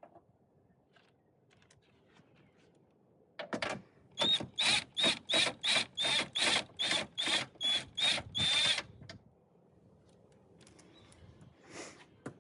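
Hand ratchet wrench worked back and forth to undo a 10 mm nut, a rapid run of about a dozen short ratcheting strokes a little over two a second, starting a few seconds in and stopping after about five seconds.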